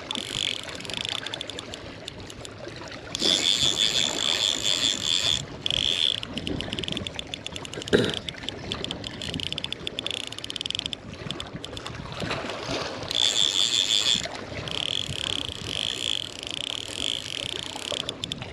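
Fly reel's ratchet drag clicking in fast rasping runs as line goes off or comes back onto the spool while a heavy hooked trout fights. The runs are loudest twice, once a few seconds in and once near two-thirds through. There is a single sharp knock about halfway, over steady wind and shore hiss.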